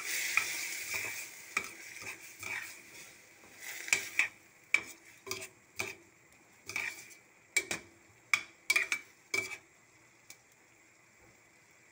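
A spatula stirring mung beans sautéing in a stainless steel pan. A frying sizzle fades over the first few seconds, then comes a run of sharp knocks and scrapes of the spatula against the pan, stopping a couple of seconds before the end.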